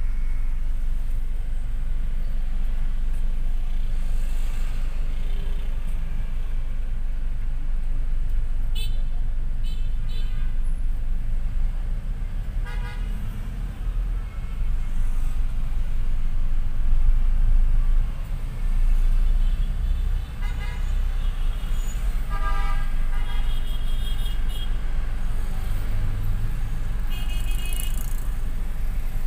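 City street traffic with a steady low engine and road rumble of motorbikes and cars, and short vehicle horn honks sounding several times.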